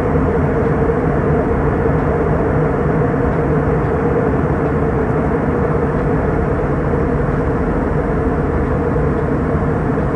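Steady drone of an airliner cabin in flight: jet engine and rushing airflow noise, with a constant mid-pitched hum running through it.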